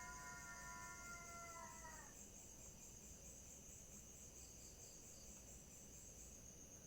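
Steady high chirring of night insects, with a faint distant drawn-out tone of several pitches held together in the first two seconds, which dips and cuts off about two seconds in.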